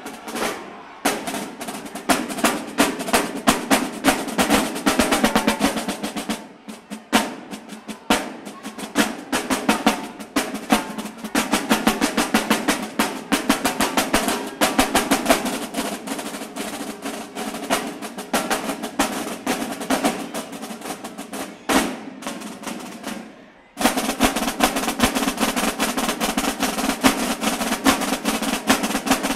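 Marching-band drumline of snare drums and bass drums playing a fast cadence of dense, rapid strokes and rolls. The line drops out briefly just before 24 seconds in, then all come back in together loudly.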